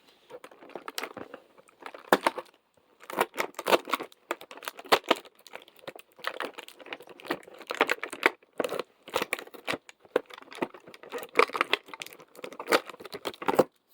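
Packaging being torn open and crinkled by hand while a fidget toy is unwrapped from an advent calendar door: an uneven run of rustles and sharp crackles.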